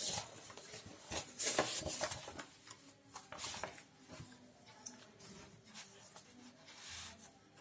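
Pages of a printed book being leafed through and handled: a few short paper rustles and flicks in the first couple of seconds, then fainter handling noise.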